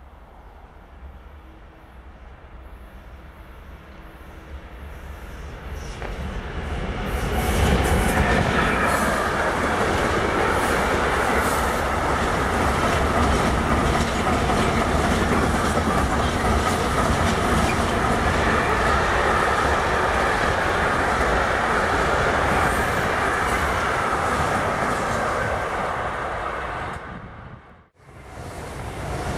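Freight train of container wagons approaching and passing at speed: the rumble of steel wheels on the rails grows over the first seconds, then holds loud and steady as the wagons run by. It breaks off abruptly near the end, followed by the rising rush of another passing train.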